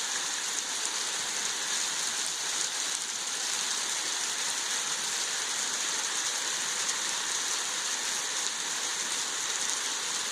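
Hail falling steadily, a dense, even hiss of many small hits.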